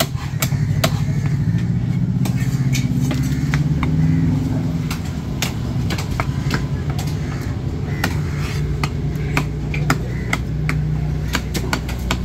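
A large knife chopping fish into chunks on a wooden log block: a run of irregular sharp knocks, several a second, thinning out for a few seconds near the start and picking up again in the second half. A steady low engine hum runs underneath.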